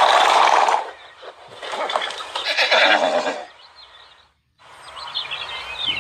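Horse whinny sound effect from a computer-animated 3D horse: two breathy calls in the first three and a half seconds, a brief cut-out, then a higher, wavering call near the end.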